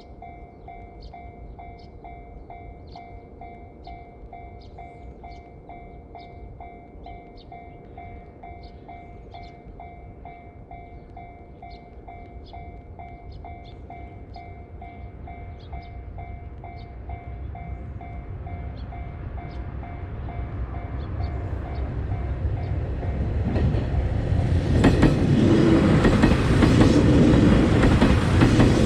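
Japanese railway level-crossing warning bell ringing its steady repeated 'kan-kan' strokes while a train approaches, growing louder. The bell is drowned out as the train passes close by in the last few seconds, its wheels clattering over the rail joints.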